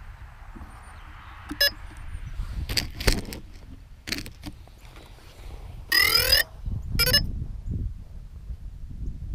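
Electronic beeps: a short beep about a second and a half in, then a louder, longer tone with gliding pitch about six seconds in and another brief one just after. Around them come a few sharp handling knocks and a steady low rumble on the microphone.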